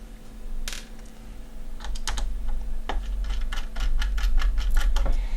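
Small screwdriver clicking against the tiny screws of a graphics card's VRM heatsink as they are unscrewed: scattered clicks at first, then a quick run of light clicks, about four a second, in the second half.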